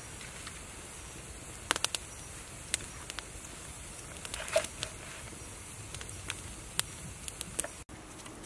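Wood fire crackling under a wok, with sharp irregular pops and snaps over a faint steady background.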